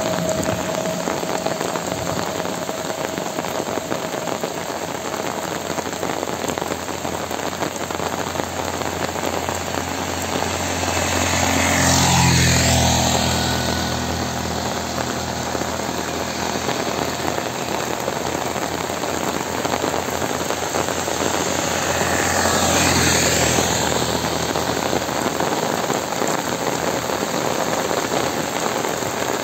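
Steady heavy rain falling. Two vehicles pass by, about twelve and twenty-three seconds in, each swelling over the rain and fading within a few seconds.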